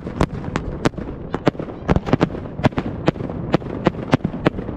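Fireworks display bursting: a rapid, uneven string of sharp bangs, about three or four a second, over a steady low rumble.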